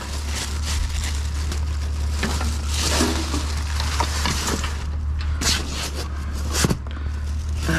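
Junk being rummaged through in a dumpster: rustling and scraping with scattered sharp knocks, the loudest knock near the end, over a steady low hum.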